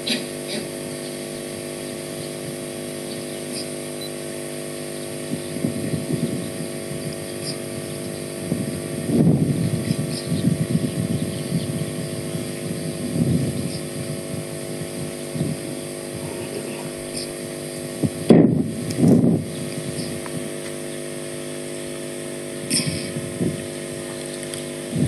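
A steady mechanical hum of several fixed tones, broken by irregular low rumbling bursts and two sharp thumps close together about three quarters of the way through.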